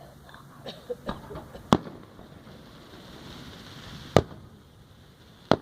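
Fireworks going off: a few small pops, then three loud sharp bangs spaced a couple of seconds apart, with a faint hiss between them.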